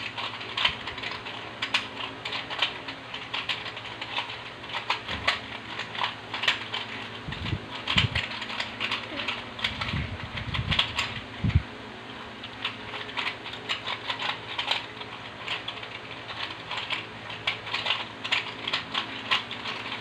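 A plastic 3x3 Rubik's cube is being twisted by hand, its layers making rapid, irregular clicking and rattling, with a few dull thumps.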